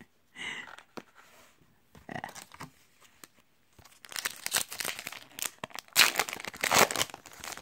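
A Yu-Gi-Oh! booster pack's foil wrapper being torn open and crinkled by hand: a few short rustles, then two louder spells of tearing and crinkling about four and six seconds in.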